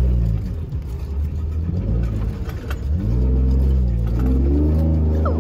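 Vehicle engine revving up and easing off, its pitch rising and falling, then building again about three seconds in.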